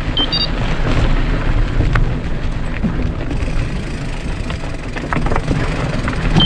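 Wind rumbling across the camera microphone and a mountain bike's knobby tyres rolling over a rough dirt and stone track, with scattered clicks and rattles.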